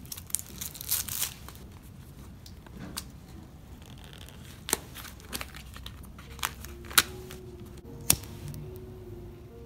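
Close rustling and crinkling from hands handling something, cut by several sharp clicks. Soft sustained musical tones come in about two-thirds of the way through.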